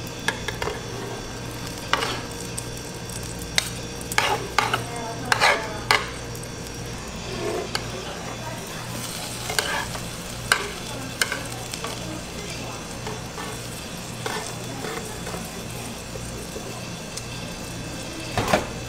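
Egg omelette sizzling on an electric griddle pan while plastic slotted spatulas scrape and knock against the pan to roll it. The scrapes come in scattered clusters, with one loud knock near the end.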